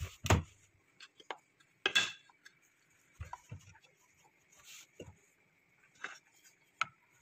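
Metal cooking pot and utensils knocking and clinking now and then as the pot is handled: a sharp knock just after the start, another about two seconds in, then several softer taps.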